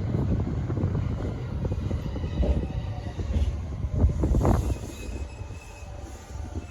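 Sunrise Seto/Izumo sleeper train, a 285-series electric multiple unit, running on the rails with a steady low rumble. A few sharp knocks come about four seconds in, and the sound quietens over the last couple of seconds.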